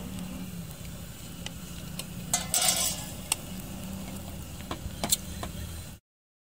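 A long metal ladle stirring and scraping through cooked rice with vermicelli in a large aluminium pot, with a few sharp scrapes and knocks against the pot, the loudest about two and a half seconds in. A steady low hum runs underneath, and the sound drops out just before the end.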